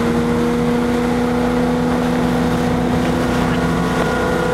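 Motorboat engine running steadily at speed while towing a tube, a constant even drone over the rush of water.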